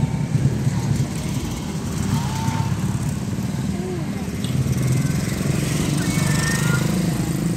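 A motor vehicle engine running steadily close by, a low, even hum, with a few faint, short, high gliding calls over it.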